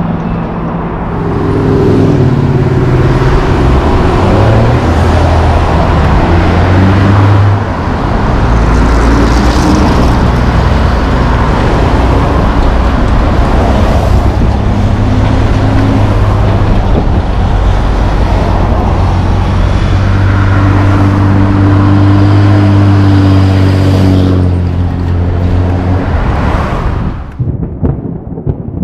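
Road traffic: diesel trucks and cars running and passing, with steady low engine hum and tyre noise. The sound fades out near the end.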